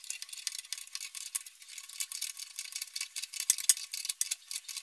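Adjustable wrench and pliers tightening a nut on a bolt that clamps a welding cable's wire between two steel plates: a run of small, irregular metal clicks and scrapes.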